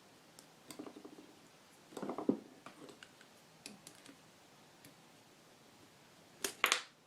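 Small metal clutch parts being handled by hand: a few light clicks and taps spread apart, with the loudest clinks near the end.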